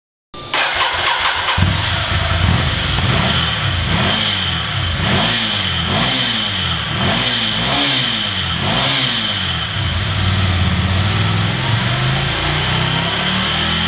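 Ducati Monster 797's air-cooled 803 cc L-twin on its stock OEM exhaust starting up, then blipped about five times, revs rising and falling, before settling to a steady idle. A steady high whine sits underneath.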